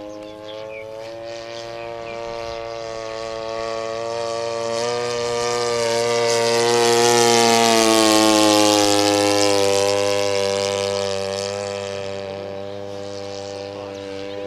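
Engine and propeller of a large-scale radio-controlled AT-6 Texan model making a pass: the steady drone grows louder to a peak about halfway through, its pitch dropping as it goes by, then fades.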